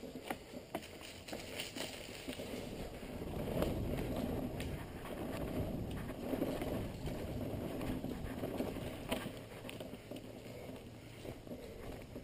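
Mountain bike riding a dirt pump track: a rough rumble of the tyres rolling over packed dirt, louder through the middle, with scattered sharp clicks and rattles from the bike.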